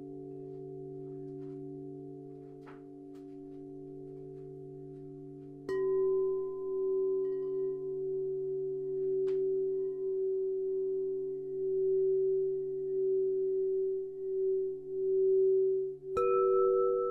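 Singing bowls ringing in long, overlapping steady tones. One is struck about six seconds in and another about a second before the end, each strike adding new pitches. The ring wavers slowly in loudness.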